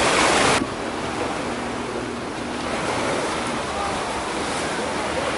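Small waves washing onto a sandy beach in a steady rush, with wind buffeting the microphone. A louder, brighter rush in the first half second cuts off abruptly, then the surf carries on more softly.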